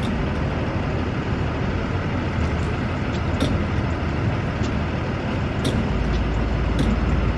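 Car running with steady engine and road rumble that grows deeper and louder about six seconds in, with a few faint, irregular clicks.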